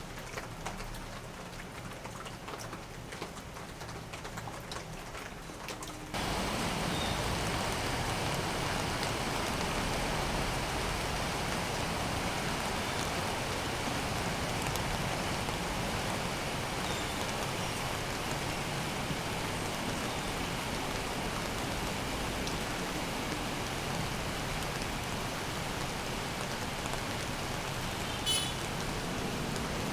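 Steady rain falling, which turns suddenly louder about six seconds in.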